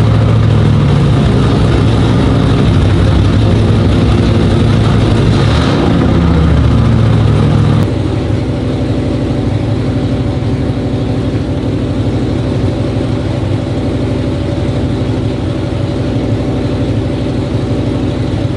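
Big-block Mopar 440 V8 stroked to 512 cubic inches, with a flat-tappet cam and a carburettor, running on an engine dyno. It runs loud and uneven for the first eight seconds or so, then drops to a lower, steadier level.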